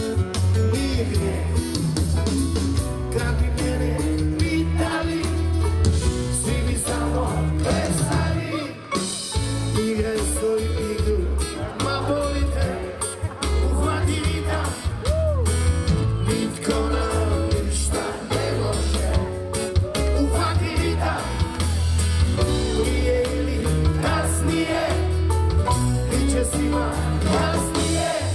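Croatian rock band playing live with strummed acoustic guitars, a lead singer and a strong low bass. It is heard from within the audience.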